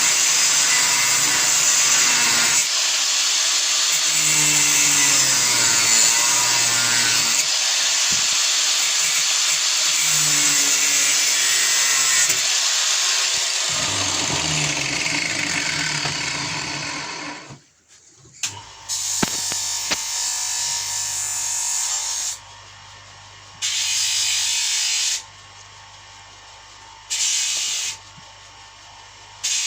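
Electric power tool working metal while bolts are cut and fitted to size: one long continuous run that stops about 18 seconds in, then several short bursts of a second or two each.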